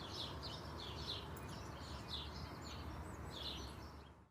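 Small birds chirping, short high chirps repeating about three times a second over a steady background hiss. The sound fades away just before the end.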